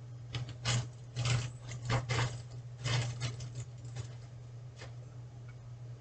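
Clear plastic zip-lock bag of small wooden kit parts handled and crinkling, in a run of short irregular rustles that die away after about five seconds.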